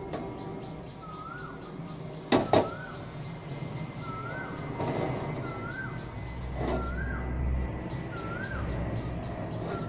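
Garlic-chive omelette frying in oil in an aluminium wok, a soft steady sizzle, while a bird calls over and over, a short rising-then-falling note about once a second. Two sharp knocks come a little over two seconds in.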